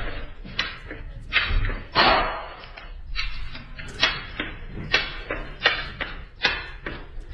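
A series of short knocks or thumps, roughly one a second, over a low rumble.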